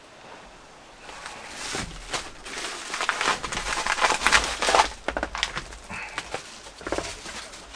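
Plastic food packaging crinkling and crackling as it is handled and opened, densest and loudest for a few seconds in the middle, then a few scattered crinkles.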